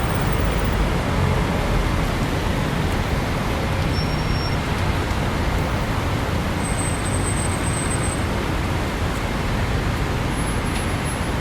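Steady traffic on a busy city boulevard: a continuous wash of car and bus noise without a break, with faint brief high squeals about four seconds in and again around two-thirds of the way through.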